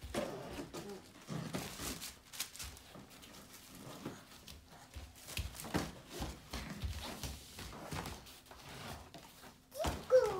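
Large cardboard box bumping, scraping and rustling with scattered knocks as small children lift and carry it around. A young child gives a brief vocal sound near the end.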